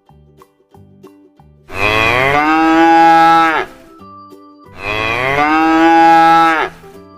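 A cow mooing twice, two long calls of about two seconds each, over soft background music.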